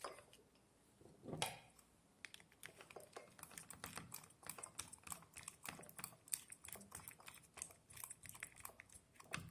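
Faint, rapid small clicks and ticks, several a second, with one louder click about a second and a half in: hand work on the wiring of a three-way switch as the last wire goes onto its terminal.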